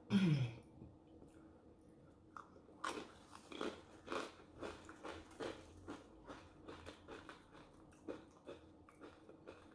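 A person chewing food close to the microphone, at about two chews a second from about three seconds in. At the very start comes a short falling vocal sound, the loudest moment.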